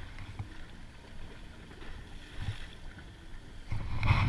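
Lake waves lapping and splashing against a concrete breakwater, with wind on the microphone, and a louder rush of water near the end.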